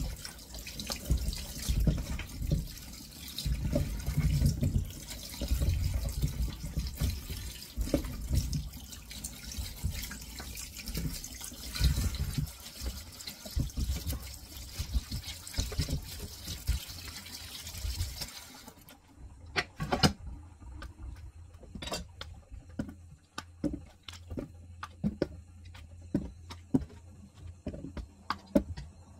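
Kitchen tap running into a stainless steel sink while mushrooms are rinsed by hand. The water shuts off about two-thirds of the way through, followed by light knocks and clicks as the mushrooms are set down on a wooden chopping board.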